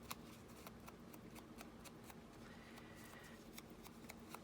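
Faint, irregular light clicking and scratchy rustling of fingers picking at the cut end of a fabric tie to fray it.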